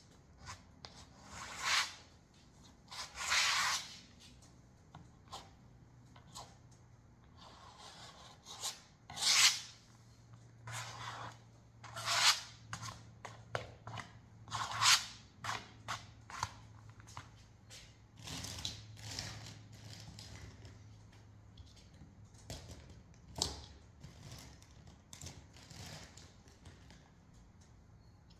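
A hand-held block scraped across a stretched canvas, spreading paint for an underpainting. It makes a rasping rub in irregular strokes, a dozen or so, each under a second long.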